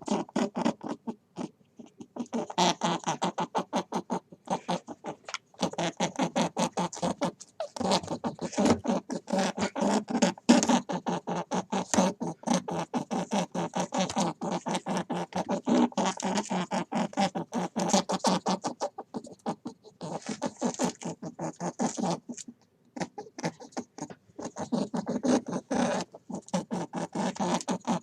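An animal calling in a fast run of short, repeated pitched pulses, several a second, with a short break about three quarters of the way through.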